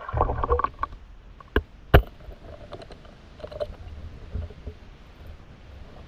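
Underwater noise picked up by a spearfisher's camera as the diver moves among submerged branches: a burst of crackling at the start, then two sharp knocks, the louder about two seconds in, over a faint low rumble of the water.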